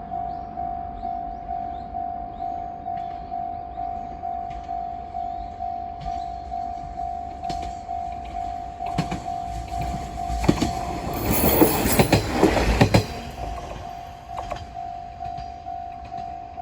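Japanese level-crossing alarm bell ringing its steady electronic ding, about two and a half strokes a second. About nine seconds in, a diesel railcar rumbles through the crossing with its wheels clicking over the rail joints, briefly drowning the bell. The bell carries on alone after the train has passed.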